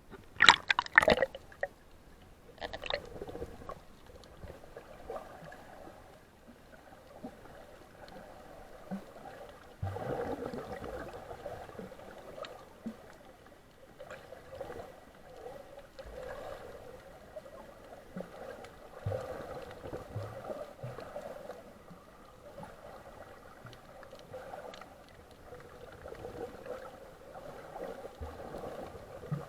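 Seawater gurgling and sloshing close to the microphone, with loud splashing about a second in and an uneven rushing that swells and fades.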